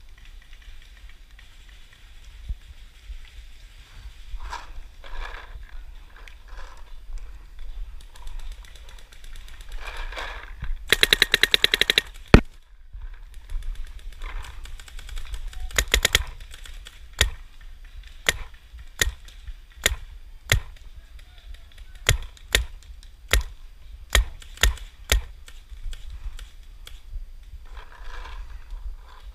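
Paintball marker firing: a fast burst of shots lasting about a second, then a dozen or so single shots, roughly one every half second to second.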